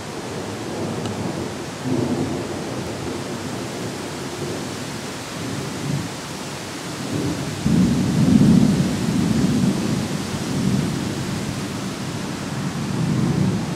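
Thunder rumbling in long low rolls, swelling about eight seconds in and loudest there, with a smaller swell near the end, over a steady hiss.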